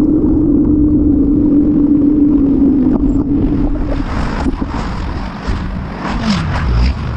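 Wind noise and a steady hum while a bicycle rolls along a paved trail; after about four seconds the hum stops and car traffic is heard going by at an intersection, one vehicle passing with a falling pitch near the end.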